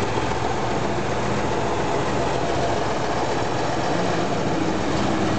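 Heavy diesel engine of a Doosan crawler excavator running steadily at working revs.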